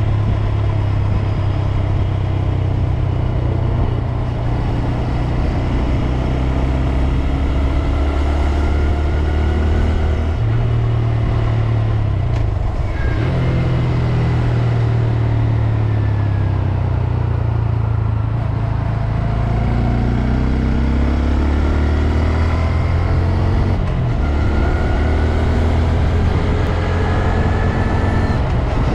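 2022 Honda Grom's single-cylinder engine running under way, its pitch rising and falling several times as the bike accelerates and shifts, over heavy wind rush.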